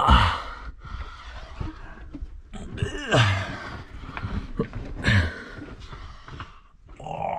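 A person breathing hard and groaning with effort while crawling on hands and knees, with a few loud breaths or groans; one about three seconds in falls in pitch.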